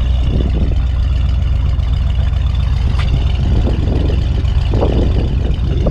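Buick 350 V8 with added dual exhaust running steadily while the car is driven, a deep steady rumble mixed with wind noise on the microphone. A single sharp click about three seconds in.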